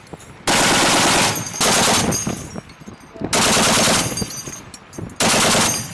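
M2 .50-calibre heavy machine guns firing four short bursts of rapid, evenly spaced shots, each followed by a ringing echo.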